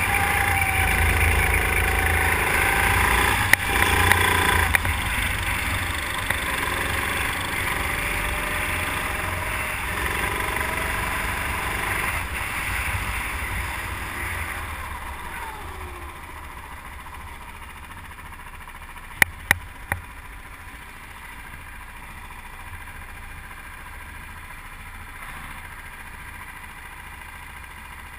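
Go-kart engine running at racing speed, heard from the kart itself, then dropping in pitch and level about halfway through as the kart slows, settling to a quieter steady run near idle. Three sharp clicks come close together about two-thirds of the way in.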